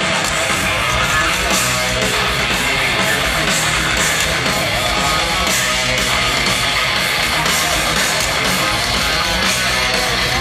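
Heavy metal band playing live: distorted electric guitars over drums and bass, recorded from inside a stadium crowd.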